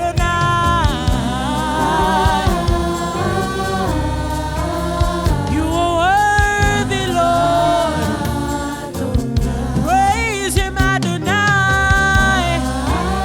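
Gospel worship music: singers holding and gliding long notes over sustained keyboard chords and bass.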